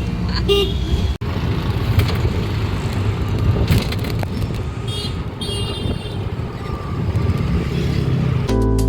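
Steady low rumble of a road vehicle on the move, with music starting just before the end.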